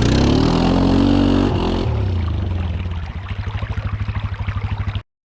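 Bultmotors Jumbo 700 ATV engine revving up for about two seconds, then dropping back to an even, pulsing idle. The sound cuts off abruptly near the end.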